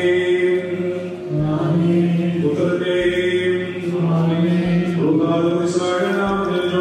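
Slow liturgical chant: a voice singing long held notes in phrases about a second and a half long.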